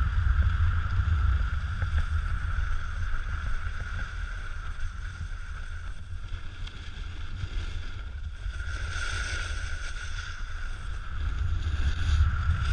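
Wind rushing over an action camera's microphone during a snowboard descent, with the hiss of the board sliding over packed snow. The snow hiss grows louder about nine seconds in and again near the end.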